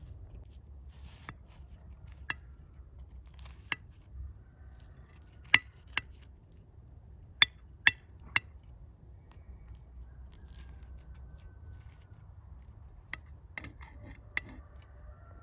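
Scattered sharp clinks of metal utensils against dishes, about a dozen over the stretch, each ringing briefly, with three loud ones close together in the middle.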